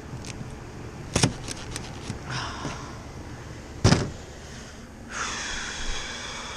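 Tool work on the sheet-metal panel of an iced-over condensing unit. Two sharp knocks come about a second and four seconds in, with clicks and scraping between them and a longer scraping noise near the end.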